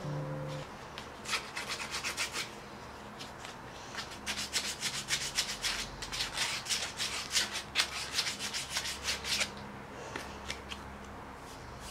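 Wooden spoon being worked by hand: quick rubbing, scraping strokes on wood, about four or five a second in runs with short pauses.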